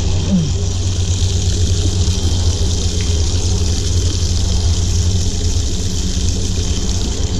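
Steady rush of water pouring out of an outlet into a pond, with a constant low rumble under the hiss.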